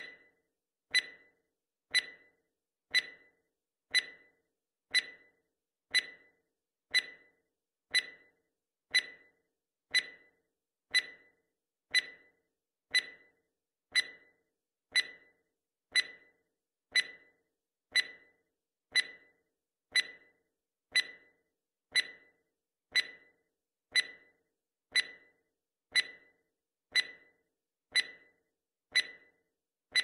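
Countdown timer tick sound effect: one short, sharp tick every second, evenly spaced, each fading quickly, marking each second of the count.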